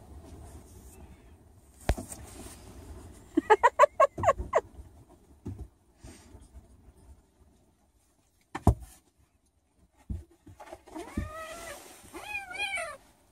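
A young kitten and puppy at play: a quick run of about eight high, squeaky cries a few seconds in, and two longer cries that rise and fall near the end, with a couple of sharp knocks between them.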